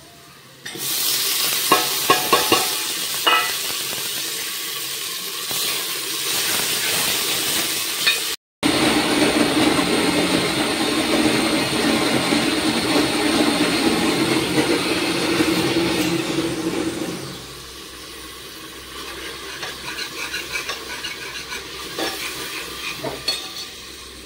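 Chopped tomato sizzling as it goes into hot oil in a pressure cooker, with a ladle clicking as it stirs. Then a Kenstar electric mixer grinder runs steadily for about eight seconds, grinding garlic and dried red chillies into chutney, before it stops.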